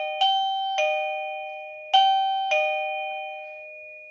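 Housmile wireless doorbell receiver playing its electronic chime: bell-like notes alternating high and low, each ringing on and decaying, four notes with a short pause in the middle, the last one fading out at the end.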